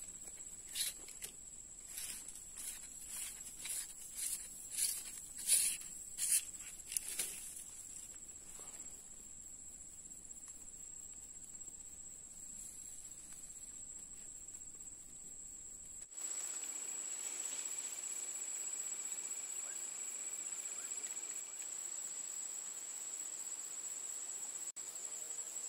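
Insects droning, one steady high-pitched note that grows louder about 16 seconds in. In the first eight seconds there are about ten short, sharp, scratchy sounds.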